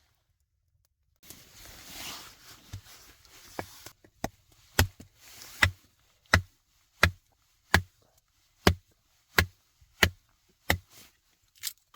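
Steady chopping: about eleven sharp, even strikes, roughly one every 0.7 seconds, each with a low thud, after a few seconds of rustling.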